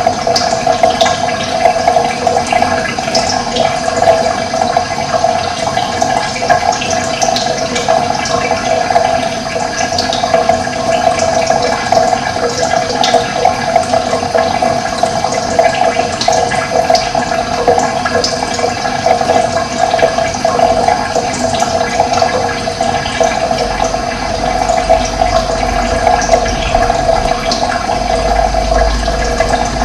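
Running water flowing steadily in a continuous rush, with faint short bird chirps here and there above it.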